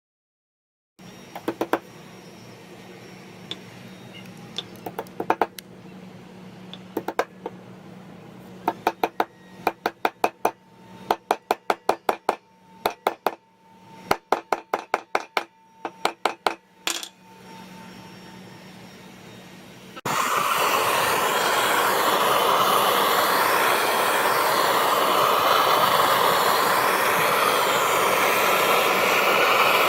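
Hammer blows on steel at an anvil, in quick runs of ringing strikes with pauses between. About two-thirds of the way through, a loud steady rushing hiss starts suddenly and runs on.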